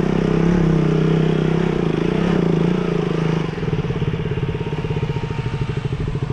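Motorcycle engine running steadily, then dropping to idle about three and a half seconds in, with a rapid even pulsing.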